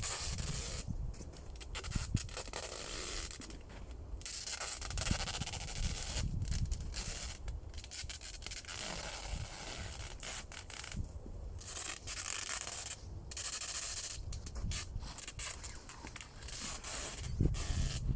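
Adhesive tape being pulled off the roll in long, hissing strips, again and again with short pauses, as it is wrapped around the poles of a shelter frame.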